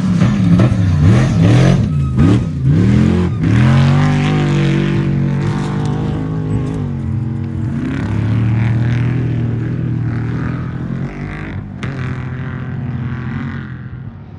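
Trophy truck engine revving hard, its note swinging up and down several times in the first few seconds, then holding a steady note that slowly fades away. A single sharp click near the end.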